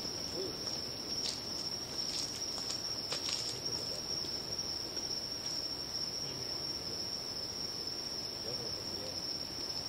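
Night insects trilling in one steady, high-pitched, unbroken chorus. Footsteps and short rustles on dry ground and leaf litter come in the first few seconds.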